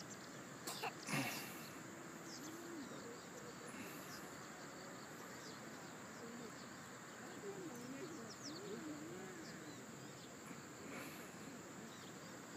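Faint outdoor field ambience: a steady background hiss with insects and scattered high bird chirps, and one brief louder sound about a second in.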